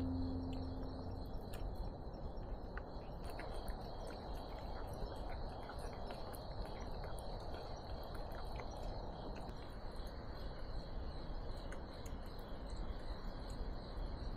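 Crickets chirping steadily in a continuous high-pitched band over a low outdoor background hiss, with faint scattered clicks.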